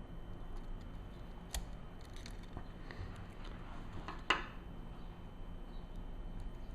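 Small clicks and taps of metal and plastic lens parts being handled and fitted during reassembly, with a sharper click about a second and a half in and a louder click about four seconds in.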